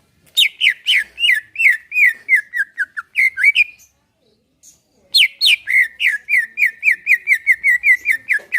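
Cucak ijo (greater green leafbird) singing two loud phrases of quick, repeated down-slurred whistled notes, about four to five a second. Each phrase lasts over three seconds, with a short pause between them.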